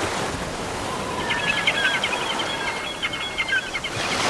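Ocean surf breaking on rocks, a steady rush of water, with birds chirping rapidly over it from about a second in until near the end.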